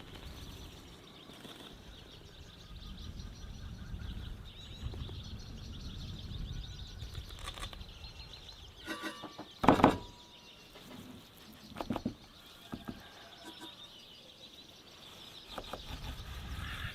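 Outdoor ambience with a low rumble and faint bird chirping. About ten seconds in come a few sharp knocks, the loudest a quick cluster, with smaller knocks a couple of seconds later.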